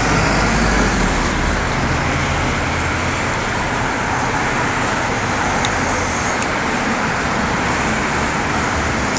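Steady road traffic noise: a constant rush with a low engine hum underneath.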